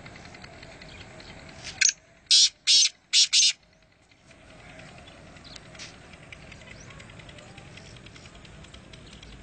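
Black francolin calling: a loud phrase of five quick high notes, one short note followed by four longer ones, lasting under two seconds about two seconds in, over a steady background hiss.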